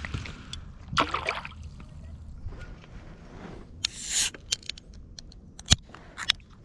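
Handling noises in a kayak: scattered sharp clicks and knocks, a short rustle about a second in and a brighter hissing burst about four seconds in, over a little water sloshing.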